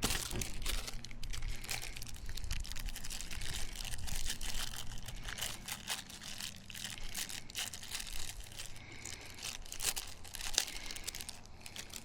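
Continuous crinkling and light irregular clicking of small plastic parts being handled, while MC4 solar connectors and their wiring are worked by hand.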